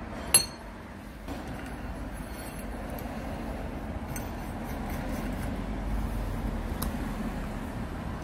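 One sharp metal clink, then a few faint clicks, as the steel chisel and coiled spring retainer are fitted onto a pneumatic jackhammer's nose, over a steady low rumble.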